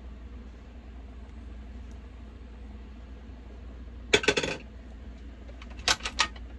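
Two short bursts of sharp clicking and clattering, about a second and a half apart, from small hard objects knocking together or being set down, over a steady low hum.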